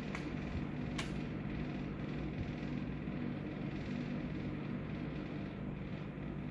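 Steady low hum of room background, with one short click about a second in.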